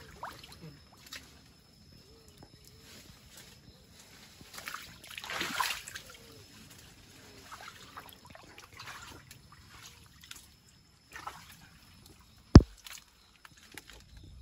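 Shallow river water sloshing and trickling as a hand feels through it among rocks and plants, with scattered small clicks and a louder splash about five seconds in. A single sharp knock near the end is the loudest sound.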